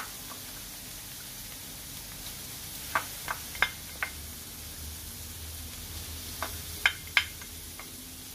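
Ground pork frying in a wok with a faint, steady sizzle. Two short runs of light taps and clicks come through it, a few seconds in and again near the end.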